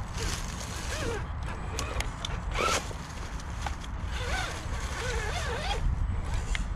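Small electric motors and gear drives of RC rock crawlers whining, the pitch rising and falling as the throttle is worked, with scattered clicks of tyres and chassis on rock.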